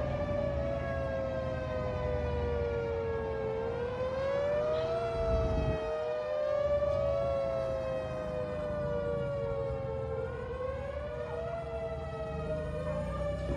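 Several sirens wailing at once: slow, overlapping tones that rise and fall every few seconds.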